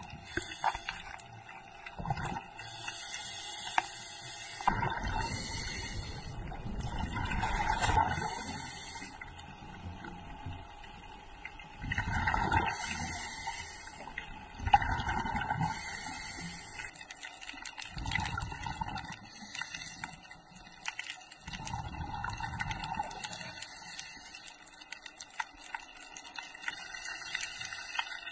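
Underwater recording of a scuba diver's exhaled bubbles, rising in bubbling bursts of a second or two every few seconds, over a faint steady whine.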